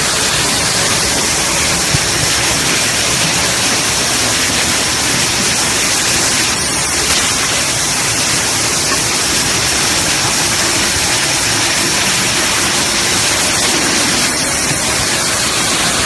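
Loud, steady hiss like static, even across all pitches, with no machine rhythm or clatter standing out.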